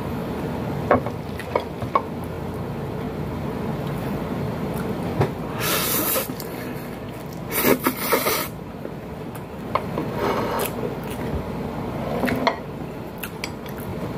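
Close-up mukbang eating sounds: chewing and lip smacks with a few loud slurps, the loudest about six and eight seconds in as pancit canton noodles are sucked in from the fingers, over a steady hiss.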